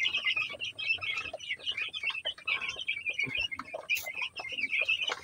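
A flock of 12-day-old broiler chicks peeping, many short high chirps overlapping without a break. A single sharp click about four seconds in.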